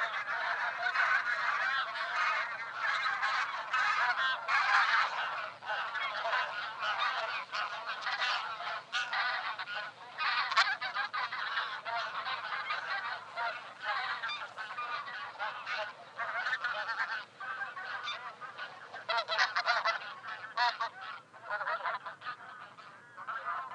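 Taiga bean geese honking, many calls overlapping densely without a break, as from a calling flock.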